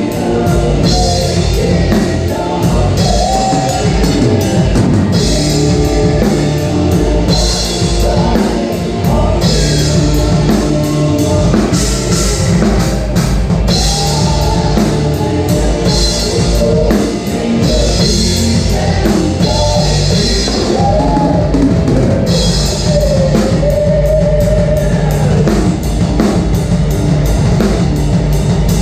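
Rock music played by a band with a full drum kit, with cymbals crashing in regular blocks over a heavy, driving low end.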